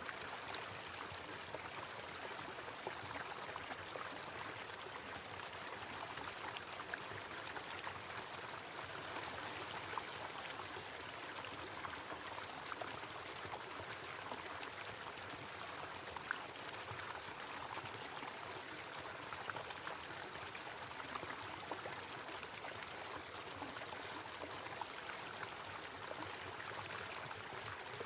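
Small waterfall: water falling and splashing steadily, with small splashes standing out now and then.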